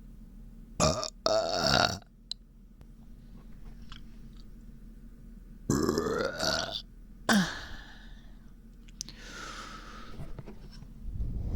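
A person burping: two loud burps, one about a second in and one about six seconds in, each lasting around a second. The uploader says her stomach hurts and she feels bloated.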